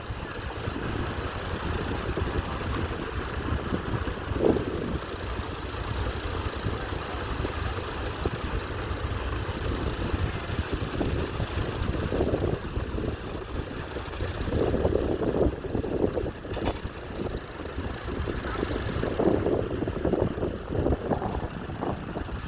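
Fordson Model N tractor engine running with a steady, low, pulsing rumble, swelling louder a few times.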